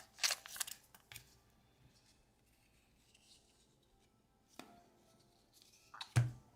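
Baseball cards being handled and set down on a table: a few short snaps and taps with quiet handling between, the loudest tap near the end.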